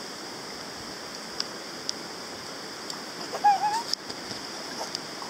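Steady rushing outdoor hiss, with a young child's brief high-pitched wavering voice about three and a half seconds in and a few faint clicks.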